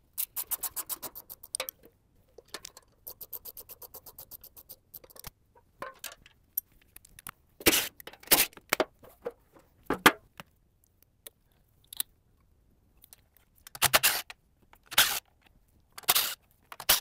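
Ratchet wrench clicking in quick runs as bolts are backed off the mini skid steer's hydraulic cooler shroud, then several short, loud bursts of a cordless drill spinning bolts out.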